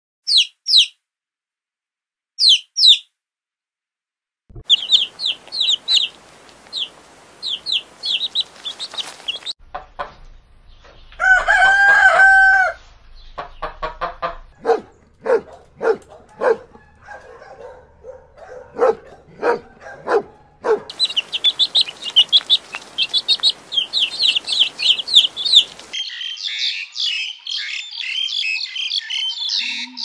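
Chicks peeping in short high bursts, then a rooster crowing once, followed by a run of short low clucks. Near the end, small birds chirp and chatter densely.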